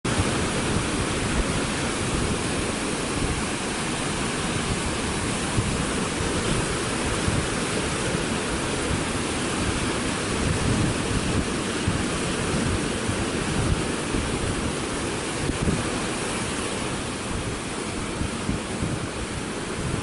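Rough sea surf breaking and washing over a black volcanic rocky shore: a steady, continuous rush of waves and churning foam.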